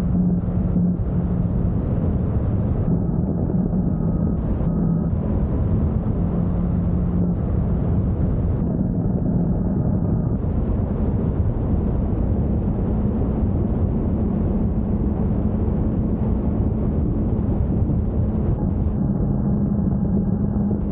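Motorcycle engine running at cruising speed, its note shifting slightly now and then, under steady wind and tyre noise on a wet road.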